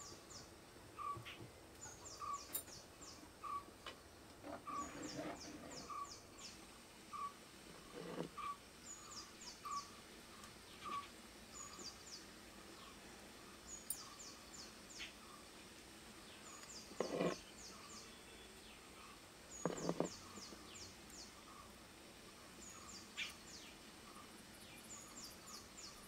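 Birds calling: one repeats a short, low note about twice a second through the first half, while another gives quick runs of high chirps every second or two. A few louder brief clatters stand out, the strongest two in the later part.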